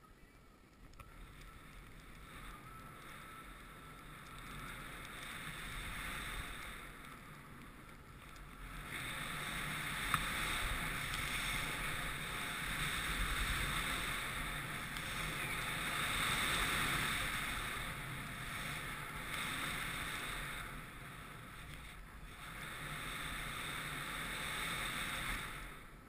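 Skis hissing as they slide and turn through heavy, wind-affected snow, mixed with wind rushing over a helmet-mounted action camera. The noise grows louder about a third of the way in, dips briefly, and swells again near the end, with one sharp click about ten seconds in.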